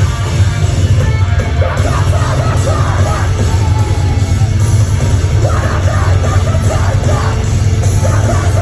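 A heavy rock band playing live and loud, with a dense, pounding low end and yelled vocals coming in and out over it.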